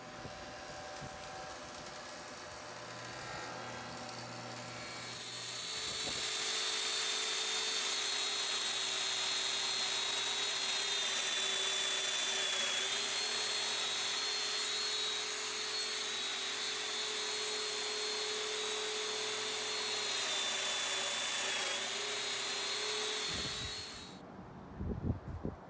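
A handheld power joiner's electric motor running at speed with a steady high whine while it cuts joinery slots in walnut boards. The whine starts about five seconds in and cuts off suddenly near the end, followed by a few knocks.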